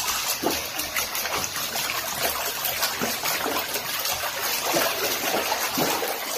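Bathwater churning in a jetted tub with the jets running, a steady rushing hiss of water.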